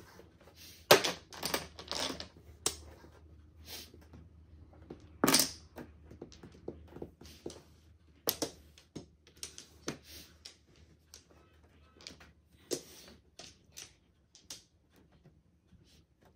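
Mahjong tiles clacking against each other and on the tabletop in irregular sharp clicks, with a few louder knocks about a second in, near two seconds, around five seconds and around eight seconds.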